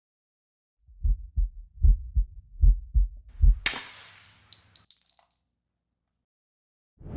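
A heartbeat sound effect: three lub-dub pairs of deep thumps, then a single one. On the last thump a bright swoosh rises, carrying two high ringing tones and a few ticks, and it fades out about two seconds later.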